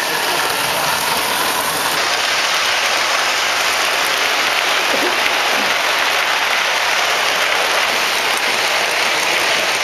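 Lionel model trains running on the layout track, their wheels and motors making a steady, hissing rush of rolling noise as cars pass close by.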